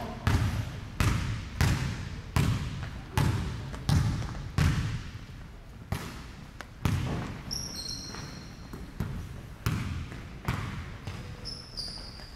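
Basketball bouncing on a hardwood gym floor, echoing in the hall: a steady dribble of about one bounce every three quarters of a second for the first five seconds, then scattered bounces. A few short high squeaks from sneakers on the floor come in about halfway through and near the end.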